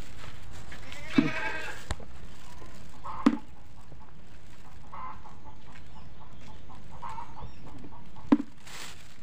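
An animal cries out once about a second in, with shorter calls recurring every couple of seconds. Three sharp knocks, at about one, three and eight seconds in, are the loudest sounds.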